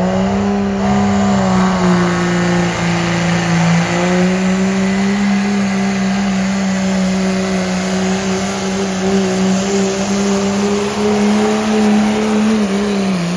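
Diesel pickup truck engine running flat out under heavy load during a truck pull, holding a steady high pitch with small rises about one and four seconds in. The pitch drops near the end as the throttle comes off.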